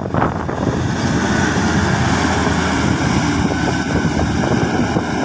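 Intercity coach bus driving past close by, a steady loud run of engine and tyre noise.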